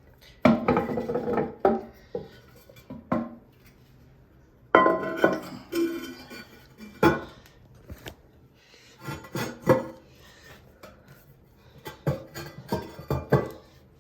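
Ceramic toilet tank lid being set back on the tank and shifted into place: a series of hard clinks, knocks and scrapes of porcelain on porcelain, some with a short ring.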